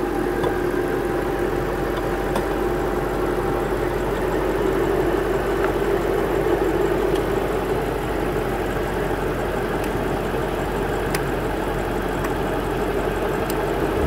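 BMW 7 Series (E66) engine idling steadily with the air conditioning switched on high, with a few faint clicks near the end as the refrigerant charging hose's coupler is pushed onto the low-pressure AC port.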